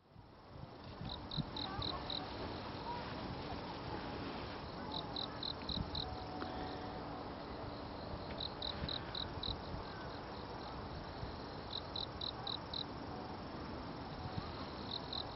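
An insect chirping in short trains of about five quick pulses, each train repeating every three to four seconds, over a steady background noise.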